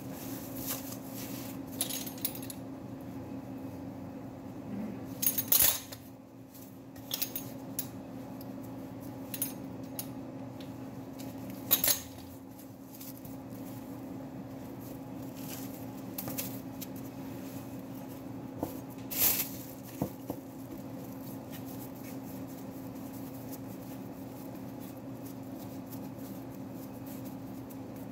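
Steady kitchen hum, with a few sharp clicks and clinks of utensils on the counter scattered through it as pizza dough is divided and shaped by hand.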